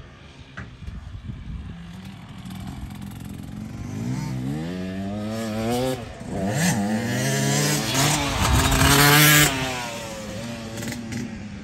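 Dirt bike engine revving as it rides a motocross track. The pitch climbs, drops suddenly about six seconds in, then climbs again to its loudest near the end before fading off.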